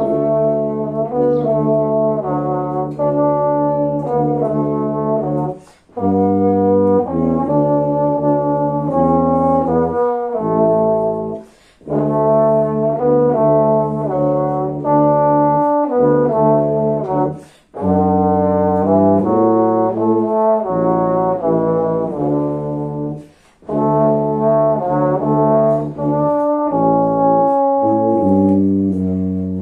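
Tuba and a second, higher brass instrument playing a hymn as a duet, the tuba holding the bass line under the melody. The music comes in phrases of about six seconds with short breaks between them.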